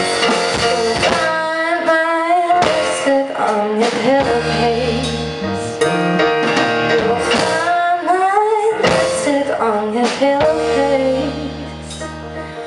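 A live band plays a song: a woman sings lead over keyboard, electric bass and drum kit, with long sustained bass notes under the melody. The music eases slightly in loudness near the end.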